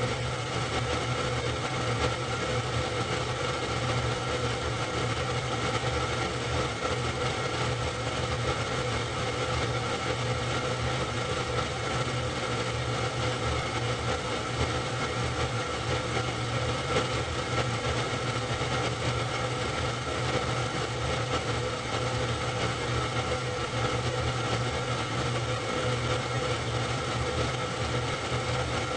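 Super 8 film projector running: a steady mechanical hum with several fixed tones, unchanging throughout.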